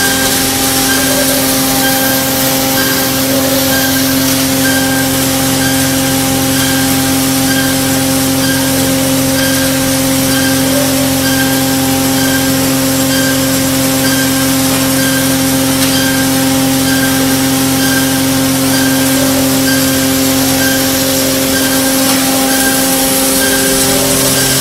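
Machinery of a biomass wood briquette production line running steadily: a loud, even hum made of several steady tones, with a faint pulse repeating at a regular beat.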